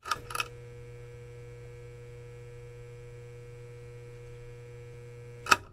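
A steady low electrical hum with a couple of thin higher tones held over it. It opens with two clicks and ends with a sharper click just before it cuts off.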